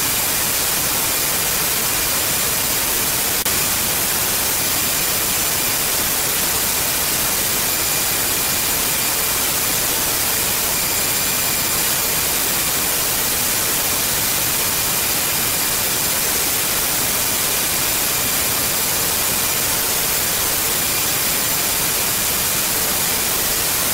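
Steady loud hiss of analog video static, the white noise of a snowy, signal-less picture, with a few faint steady high whistles through it. It starts and stops abruptly.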